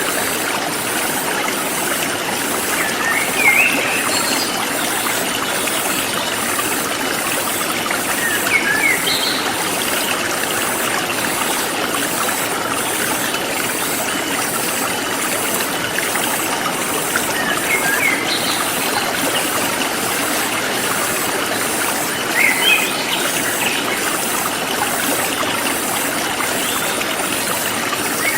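Forest stream flowing steadily. A bird gives short chirps every four or five seconds, and a high, evenly pulsing insect trill runs underneath.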